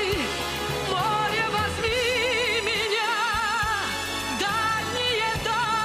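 Pop song with no words sung: a sustained melody line with wide vibrato over bass and drums.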